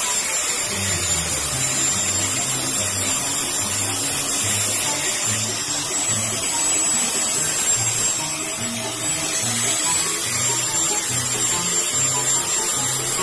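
Electric angle grinder with an abrasive disc running steadily and sanding down a wooden handle blank, a constant high whine and hiss. Background music with a low stepping tune plays underneath.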